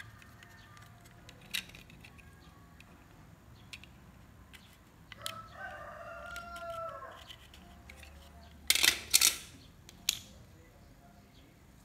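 A rooster crows in the background about five seconds in, one call about two seconds long. Near the end come a couple of short, loud scrapes, the loudest sounds here, with a smaller one just after: a cutter blade shaving the hard plastic of a power window switch housing, with faint ticks of handling before.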